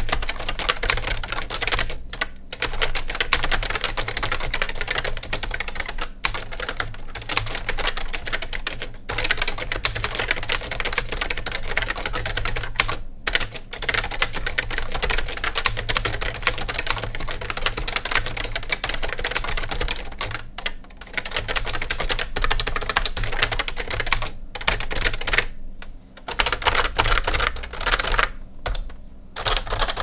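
Continuous typing on a Fujitsu OASYS 30AX word-processor keyboard with Gen 4 Fujitsu Leaf Spring switches: a dense stream of rattly key clacks, the upstroke louder than the downstroke, broken by brief pauses every few seconds.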